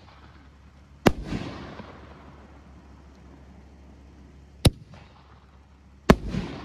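5-inch aerial firework shells going off: three sharp booms, about a second in, at around four and a half seconds and at six seconds. The first and last boom each trail off in a rolling echo.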